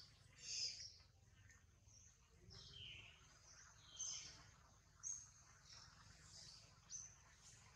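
Faint animal chirps: about half a dozen short, high-pitched calls scattered over a quiet background, some dipping in pitch.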